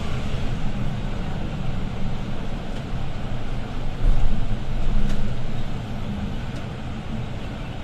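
Setra S415 LE business bus driving, heard from inside the passenger cabin: a steady low diesel engine drone over road noise, which grows louder for about a second some four seconds in.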